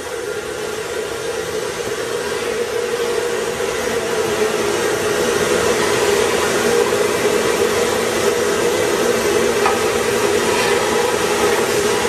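Ruwac FRV200 air-powered explosion-proof industrial vacuum running, its hose drawing coal dust off overhead structure. It makes a steady rushing air noise with a hum in it, which grows louder over the first few seconds and then holds.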